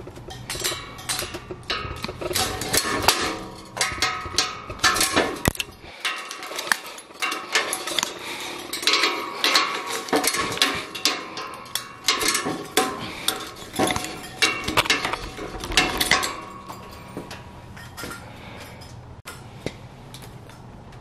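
Steel tie wire and ironworker's pliers clinking and scraping against rebar as figure-eight ties are wrapped and twisted: a rapid, irregular run of sharp metallic clicks and taps that thins out and quietens near the end.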